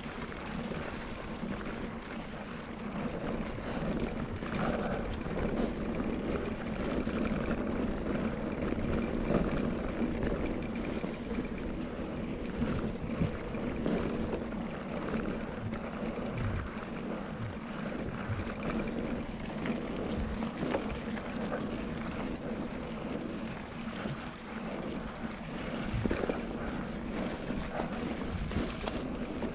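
KTM Ultra Fire 27.5 mountain bike's tyres rolling steadily over leaves, gravel and cobbles, with wind noise on the action-camera microphone. Short knocks and rattles from the bike come through here and there as it rides over bumps.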